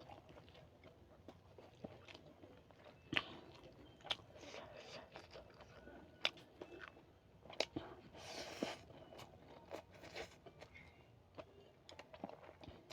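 Close-miked eating: chewing with crunchy bites and wet mouth clicks, faint and irregular, with one longer noisy sound about eight seconds in.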